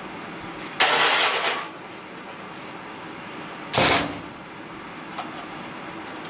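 Two short, loud bursts of metal clatter, about a second in and again just before four seconds, the second with a thump at its start, over a steady low shop background.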